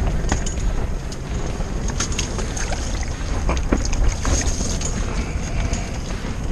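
Wind buffeting an insulated ice-fishing shelter and the microphone: a steady low rumble, with scattered light clicks and rustles from handling a fish at the ice hole.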